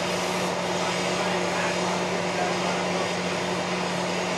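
Steady droning noise with a constant low hum inside a trailer being towed by a truck: the truck's engine and the trailer's running noise heard through the walls.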